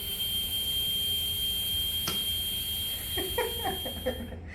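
Dentist's drill whining at one steady high pitch, then cutting off suddenly near the end, with a single click about two seconds in.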